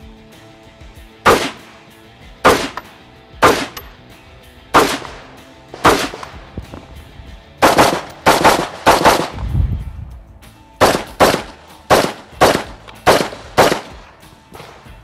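JP Enterprises Ladies Ultralight AR-style semi-automatic rifle fired in a stage run of sharp shots. Five shots about a second apart, then two quick strings of several shots each, a few tenths of a second apart.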